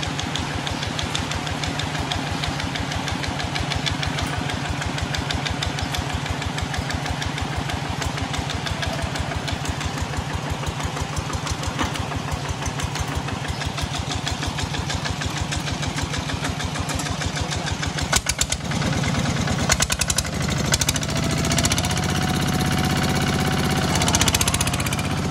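Single-cylinder diesel engine of a Kubota ZT155 two-wheel walking tractor chugging steadily under way with a fast, even beat of firing pulses. About three quarters of the way in it gets louder and fuller as the tractor comes close.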